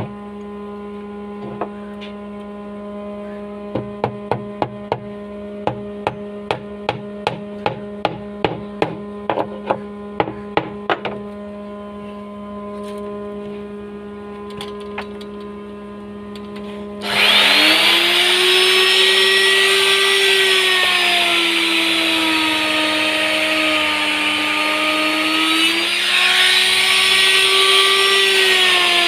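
About twenty sharp knocks, roughly two a second, over a steady low hum, then a handheld electric wood router with an 8 mm grooving bit switches on suddenly and runs loud under cutting load, its whine sagging in pitch and rising again as the bit cuts through the plank.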